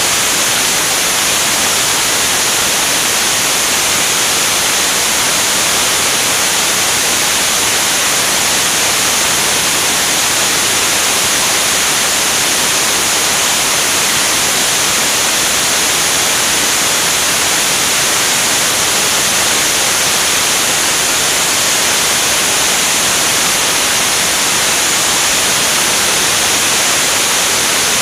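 Steady, loud rush of airflow over a wing-mounted camera on a jet in flight: an even hiss, strongest in the high range, with no engine tone standing out.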